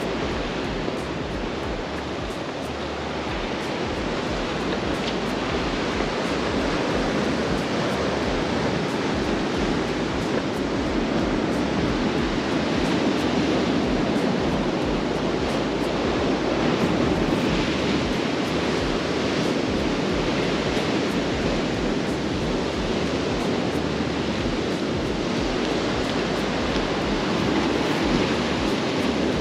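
Sea surf washing on a rocky shore, a steady rush that grows a little louder midway and eases off again.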